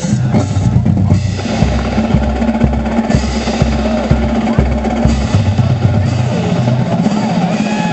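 A marching band's drumline playing, with bass drums and snare drums beating a steady rhythm.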